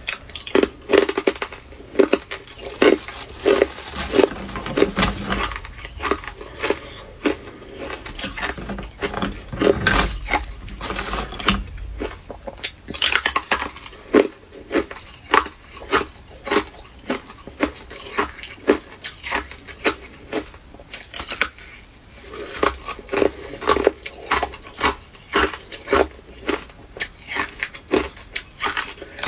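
Hard ice being bitten and crunched between the teeth: a steady run of sharp, crisp crunches, about one to two a second.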